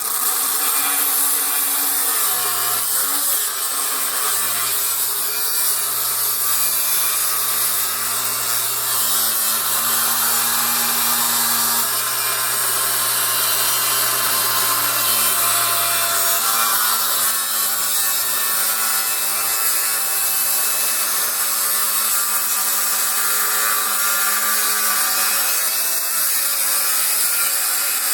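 Milwaukee M18 FUEL 3670-20 6-inch brushless cordless grinder with an abrasive cut-off disc cutting through a thick cast-iron brake rotor: a loud, continuous, even grinding noise with a low motor hum beneath it for most of the time.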